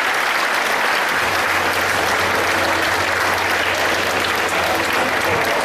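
Audience applauding, with a low steady hum joining about a second in.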